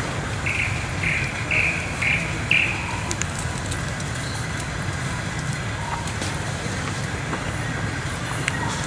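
A run of five short, high chirping calls, about two a second, in the first three seconds, over a steady low rumble.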